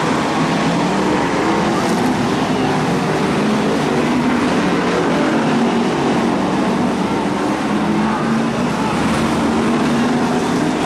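A pack of BriSCA F1 stock cars racing round an oval track, their V8 engines running loud and steady together.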